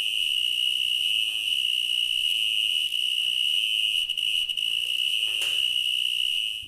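Cricket trilling: one steady, unbroken high-pitched tone that cuts off suddenly at the end.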